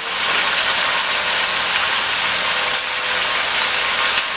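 Chicken pieces sizzling steadily in hot oil in a stainless steel skillet while being turned with metal tongs, with one sharp click of the tongs against the pan about two-thirds of the way through.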